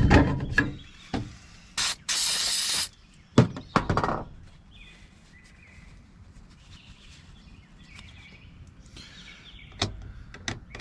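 Knocks and clatter of mortise lock parts being handled on a work surface, with a short burst of hiss about two seconds in and a single click near the end.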